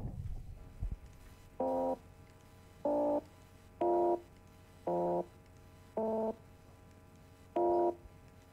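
Six short computer-generated sawtooth-wave tones at piano note pitches, each about a third of a second long, played one after another at different pitches, about a second apart.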